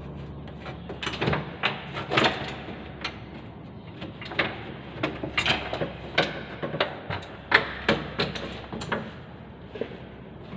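Hand work on a forklift's engine compartment: irregular clicks, clanks and knocks of parts and caps being handled, about a dozen sharp ones, over a low steady hum.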